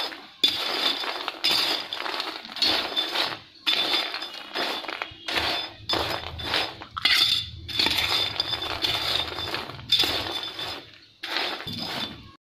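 Steel spoon scraping and clinking against a steel plate while tossing crisp fried sago-pearl chivda, in repeated strokes about one a second with short pauses between them.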